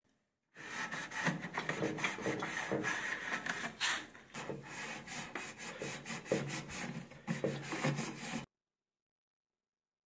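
A gloved hand scrubs the plastic front rim of a washing machine's outer tub, where the door seal seats, with rapid rubbing and scraping strokes. The rubbing starts about half a second in and cuts off abruptly near the end.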